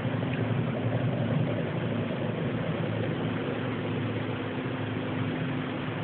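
Steady, continuous low droning hum with a few held pitches, like a distant helicopter, from an unidentified source heard across open countryside.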